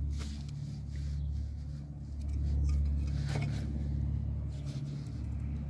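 Long-reach hose grip pliers clicking and scraping against a metal hose clamp on a coolant hose, a few sharp metal clicks, one just after the start and one about three seconds in, over a steady low hum.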